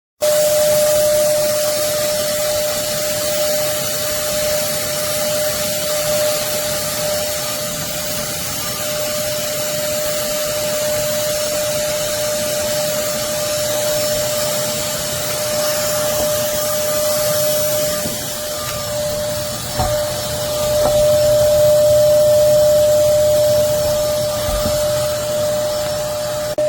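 Hoover Commercial PortaPower canister vacuum cleaner running steadily, a rushing air noise with a constant whine. About two-thirds of the way through there are a couple of knocks and the sound grows louder for a few seconds.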